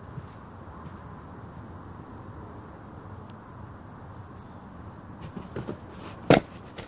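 Steady outdoor background rumble, then a few light footfalls about five seconds in and one sharp, loud thud near the end as a gymnast lands on a folding gym mat.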